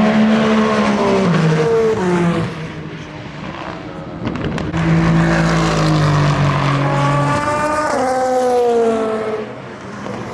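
Endurance race cars passing at speed, one after another. Each engine note falls in pitch as it goes by, the first in the opening two seconds and the second from about five seconds in.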